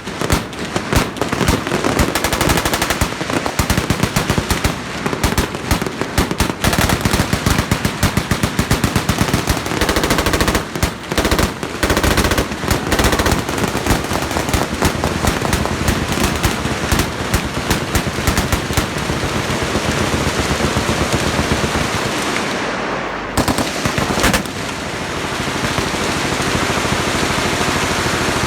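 Many machine guns firing at once along a firing line: a loud, dense clatter of overlapping automatic bursts. The bursts stand out separately in the first half and run together into continuous fire later, with a short lull about twenty-three seconds in.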